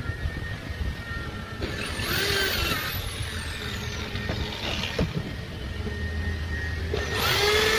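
Cordless drill run twice, each time for about a second: the motor whine winds up and then dies away as the trigger is let go. A steady low hum runs underneath.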